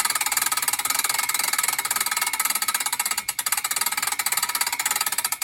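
Rapid, steady metallic clicking of a ratchet mechanism being worked continuously on the log hitch's strap, with no break in the clicking.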